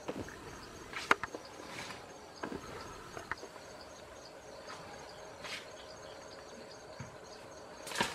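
Asian elephant moving through tall grass and leafy plants, with scattered rustles and sharp snaps of stems, the loudest about a second in. Insects keep up a steady chirring in the background.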